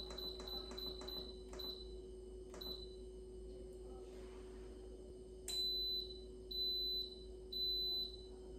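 Instant Pot control panel beeping: a quick run of short beeps as the buttons are pressed to set the cooking time, then three longer beeps about a second apart as the cooker starts its pressure-cook program.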